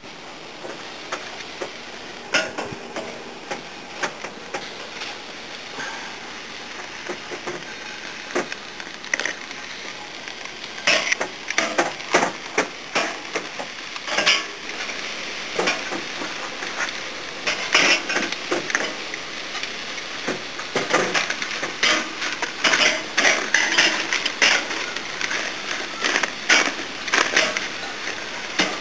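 Metal grill tongs clicking and scraping against a charcoal grill's grate and aluminium foil while turning roasting tomatoes and chiles, over a steady hiss. The clicks are scattered at first and come thick and irregular through the second half.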